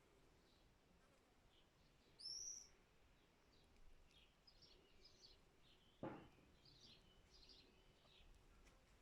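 Faint outdoor birdsong: scattered small high chirps from songbirds, with one louder, clear arching whistle note about two seconds in. A single brief dull thump about six seconds in.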